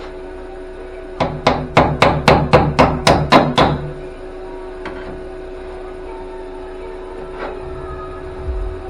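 A quick run of about nine hammer blows on metal, roughly four a second, starting about a second in, over a steady hum.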